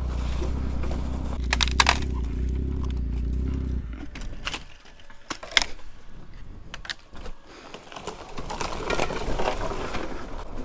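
Motorcycle engine running at low revs, cutting out about four seconds in. Then a scatter of sharp clicks, knocks and cracks, like rocks and sticks, with a fainter noise building near the end.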